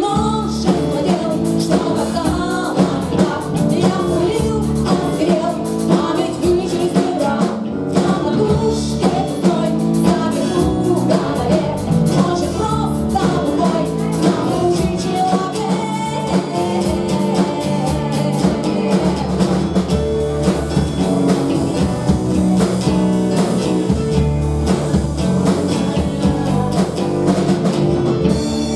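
Live rock band playing with electric guitar and drum kit, a voice singing over it for much of the time.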